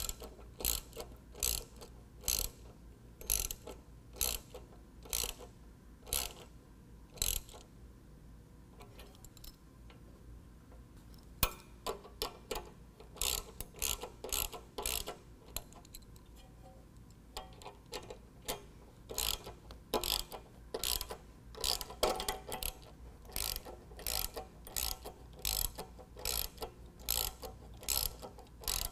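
Hand socket ratchet with a 13 mm socket clicking as it is swung back and forth on a bolt, in runs of quick clicks broken by a few pauses. The hinge bolts are being snugged down, not yet tightened all the way.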